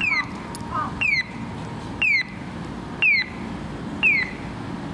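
Bird-like electronic chirps of an audible pedestrian crossing signal: one short falling chirp about every second, evenly spaced, over a low rumble of street traffic and the departing tram.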